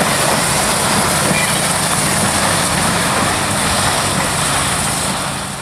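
Steam locomotive No. 110 and its train of cabooses running away down the track, a steady rumble of the engine and cars on the rails that fades near the end.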